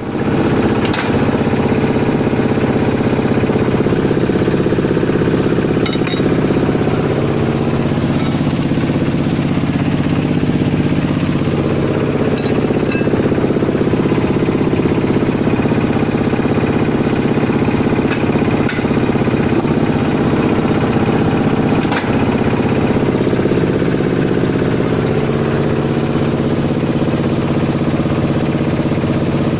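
A motor-driven steel bar bending machine running steadily, its pitch shifting slightly now and then, with a few sharp metallic clicks.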